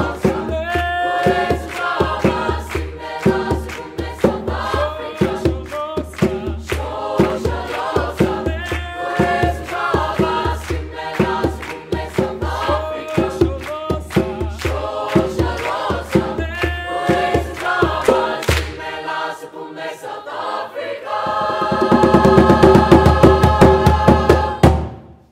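Mixed choir singing in chords over a steady hand-drum beat and group hand-clapping. The beat drops out briefly, then the choir swells into a loud held final chord over rapid drumming that cuts off suddenly.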